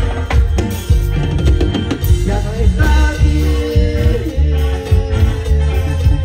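Live band music from electric bass, drum kit, electric guitar and keyboards, with a heavy, steady bass line and beat and a melody gliding over it in the middle of the stretch.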